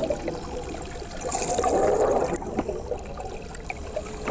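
Scuba diver breathing through a demand valve underwater: a hiss of air, then a gush of exhaled bubbles that cuts off sharply about two and a half seconds in.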